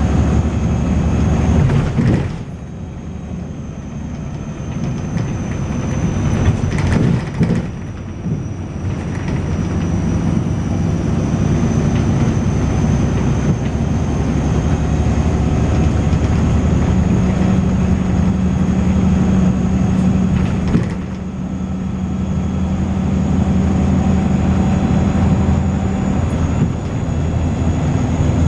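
Volvo B6LE bus under way, heard from inside: its diesel engine and ZF automatic gearbox drone, dropping off suddenly about two seconds in and again near twenty-one seconds, then building back up. A thin, steady high-pitched whine runs over it throughout, which is the strange high-pitched noise this bus makes.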